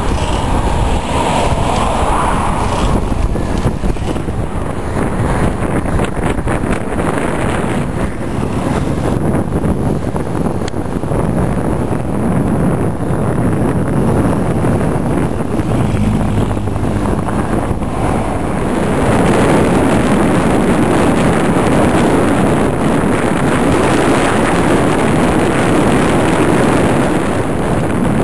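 Wind rushing over the microphone of a camera carried on a moving bicycle: a steady noise with no distinct events, growing somewhat louder about two-thirds of the way through.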